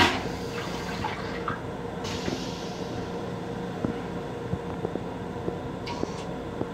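Metro-North M7 railcar toilet flushing: a sudden loud whoosh as the stainless-steel bowl empties, fading within half a second, then a softer hiss about two seconds in. The moving train hums steadily underneath.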